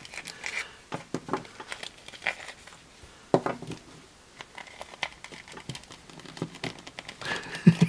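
Hands handling plastic action figures while swapping a cape from one to the other: crinkling rustle of the cape with small plastic clicks and taps, the sharpest tap about three and a half seconds in.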